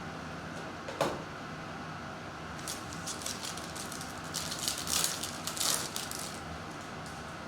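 Prizm trading cards being handled and flicked through: a sharp click about a second in, then a run of quick crisp flicks and rustles for a few seconds, over a steady low hum.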